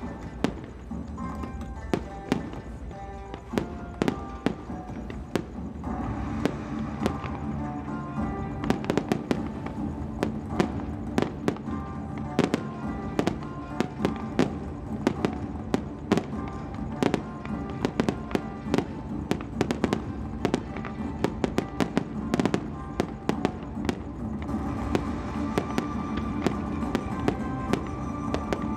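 Fireworks display: a rapid run of sharp bangs and crackles from bursting aerial shells, coming thicker after the first several seconds, with music playing underneath.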